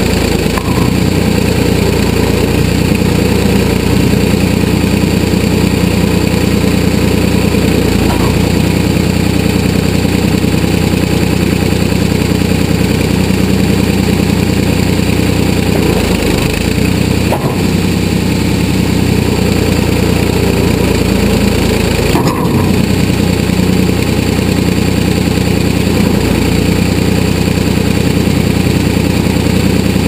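A 1981 Ford 555 backhoe's engine running steadily at working throttle, heard from the operator's seat while the boom digs. Two brief knocks come about midway through.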